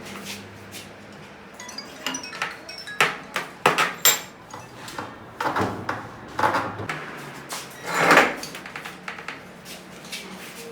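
Irregular metallic clinks and knocks, a string of sharp strikes with brief ringing, the loudest about eight seconds in, as of heavy metal jack parts being handled and struck.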